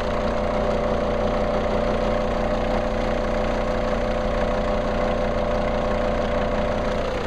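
Common-rail diesel engine idling steadily during an injector leak-off test, its injector return lines disconnected and run through clear tubing into bottles.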